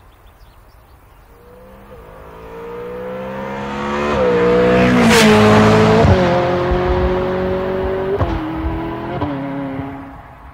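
A car engine accelerating hard through the gears. Its pitch climbs steadily and drops back at each of several shifts. It grows louder to a peak around the middle, then fades as it passes by.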